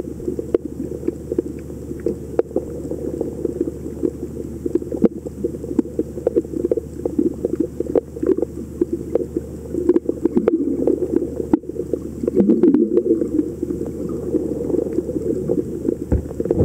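Muffled underwater ambience picked up by a submerged camera: a steady low rumble of water movement with frequent scattered clicks and crackles, swelling louder a little past the middle.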